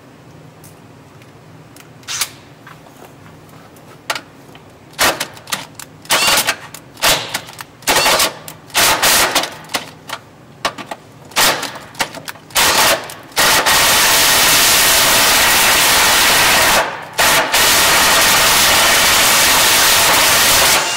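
Cordless drill boring into a vehicle's steel frame rail to enlarge a hitch mounting hole: a run of short bursts, then a long steady run broken once briefly.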